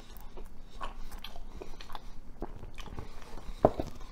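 A person chewing a mouthful of pizza with the mouth close to the microphone: scattered wet mouth clicks and smacks, with one sharper click a little before the end.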